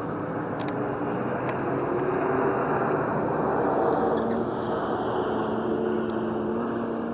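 SUV engines running at speed on a highway, with a steady rush of tyre and wind noise; the engine note climbs a little, then settles lower about four seconds in.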